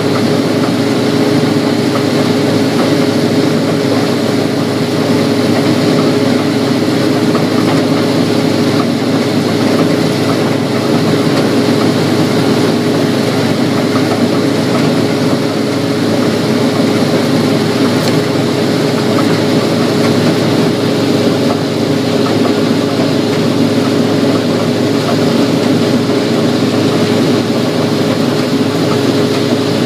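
Combine harvester running steadily while shelling corn, a constant engine and machinery drone with a steady hum.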